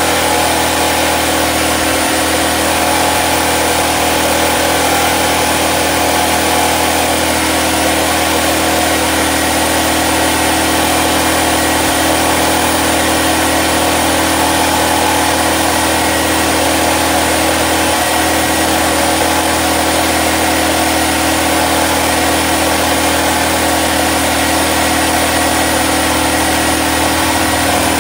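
Portable generator's engine running at a steady speed, an even drone that holds unchanged throughout.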